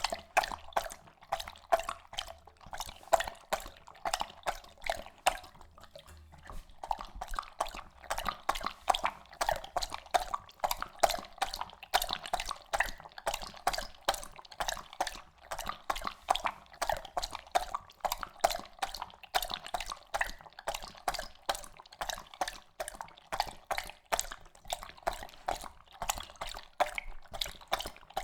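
Labrador lapping water, a steady rhythm of wet laps at about three to four a second, with a brief pause about six seconds in.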